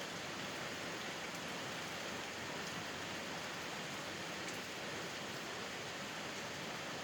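Steady rainfall, an even hiss with a few faint drop ticks.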